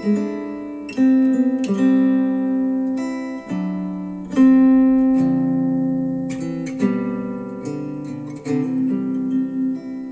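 Instrumental acoustic guitar music, plucked notes that ring and die away one after another, played back through Wharfedale Denton 80th bookshelf speakers driven by a Cambridge AXA35 integrated amplifier.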